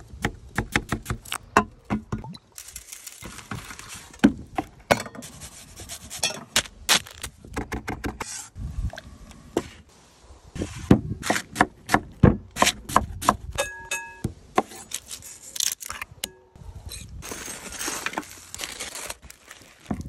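A run of cooking sounds. Rapid knife strokes chop through a potato onto a wooden board, then comes the hissing sizzle of garlic frying in oil in a saucepan, among knocks and clinks, with a brief ringing tone about fourteen seconds in. Near the end a knife cuts through a rack of barbecued ribs.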